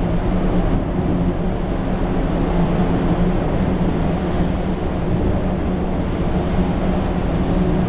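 Small waves on open water, heard as a steady low rumble with a faint low hum under it.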